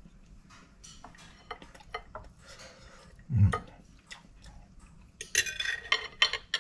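Table knife and fork clinking and scraping on a ceramic plate as cooked chicken is cut, with a dull thump about halfway through and a busier stretch of scraping near the end.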